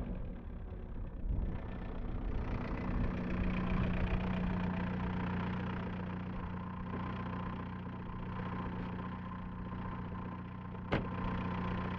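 A car rolls up and stops close by, then its engine idles steadily. A single sharp click comes near the end.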